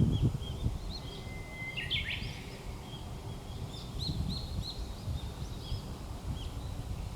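Japanese bush warbler singing its song: one long held whistle about a second in, ending in a quick rising flourish. Many short high chirps run throughout, over a low rumbling background noise.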